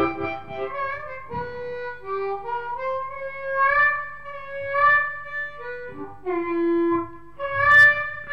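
Diatonic harmonica in C playing a blues melody of held notes and short phrases, with some notes bent so that the pitch slides.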